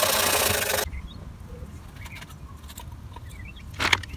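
Wire brush scrubbing rust off the steel bottom door rail of a van, a steady rasping scratch that stops abruptly about a second in. Faint bird chirps follow, and there is a brief sharp scrape near the end.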